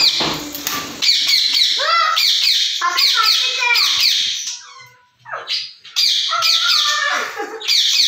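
A short burst of wing flapping as a parrot takes off, then an Indian ringneck parrot's loud, harsh screeching calls, several a second, each falling in pitch, with a brief lull just past the middle.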